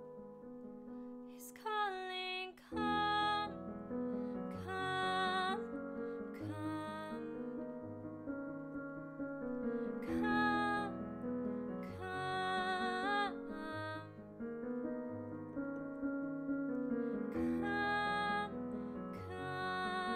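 A woman singing a worship song, accompanying herself with piano chords played on a Roland Juno-DS keyboard.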